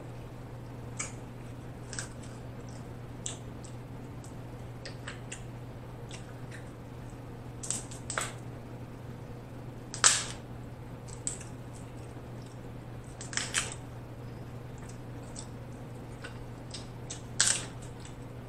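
Snow crab leg shells cracked and snapped apart by hand: sharp, irregular cracks, the loudest about ten seconds in, over a steady low hum.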